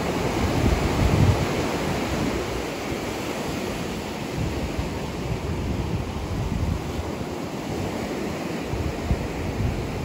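Steady rushing of ocean surf, with irregular low rumbling gusts of wind on the microphone.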